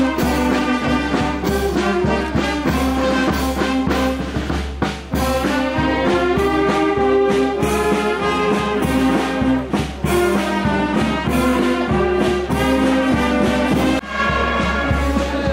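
Brass band music with a steady beat, trombones and trumpets carrying the tune.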